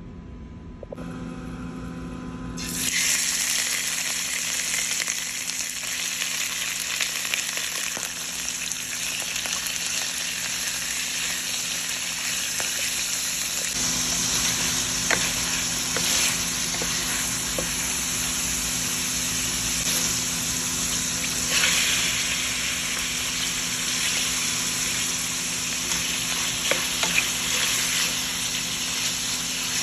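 Chunks of pork belly sizzling in hot oil in a stainless steel pan, starting about three seconds in. A wooden spatula scrapes and clicks against the pan as the meat is stirred.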